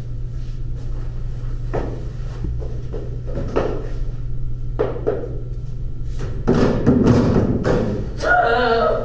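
Steady low hum with scattered knocks and thuds; a louder rustling burst comes about six and a half seconds in, and a singing voice starts near the end.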